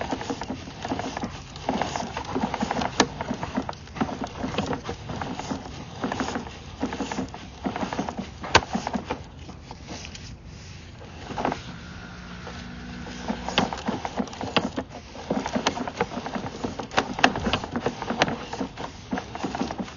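Irregular clicks and knocks of a sewer inspection camera's push cable being handled and pulled back through the line, with a faint steady hum for a couple of seconds just past the middle.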